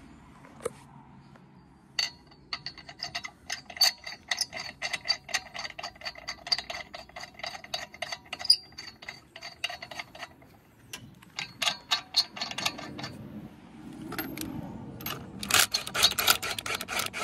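Lug nuts being threaded onto wheel studs, a run of rapid metallic clicks with a ringing tone. Near the end a cordless impact gun runs a lug nut on, a dense, louder clatter.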